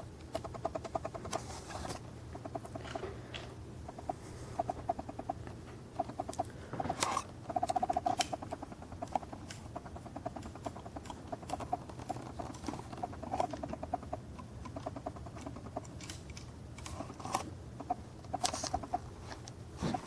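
Faint, rapid clicking in short runs as the moving parts of a 1:50 diecast Bauer BG40 drill rig model are turned by hand, with a few sharper clicks.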